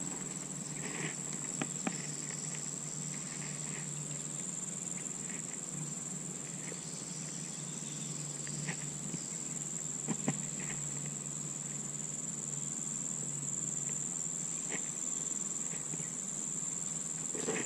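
Steady high-pitched drone of insects in the grass and brush, with a few scattered faint ticks.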